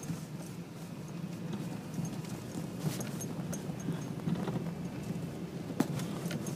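Car driving on a snowy road, heard from inside the cabin: a steady low hum of engine and tyre noise, with a few sharp knocks and rattles, the clearest about three and six seconds in.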